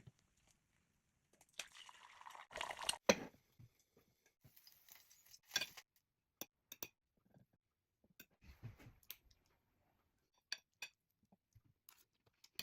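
Scattered clinks and taps of utensils against dishes, with a short scraping stretch ending in a sharp knock about three seconds in.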